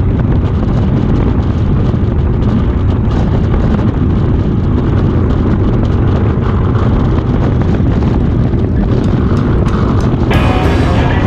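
Motorcycle engine and wind rushing over a handlebar-mounted camera while riding at highway speed: a loud, steady low rumble. Music starts about ten seconds in.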